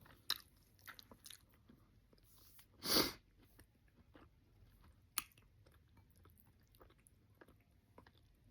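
Close-up mouth sounds of eating: soft chewing and lip smacks, scattered through, with one louder noisy smack or slurp about three seconds in.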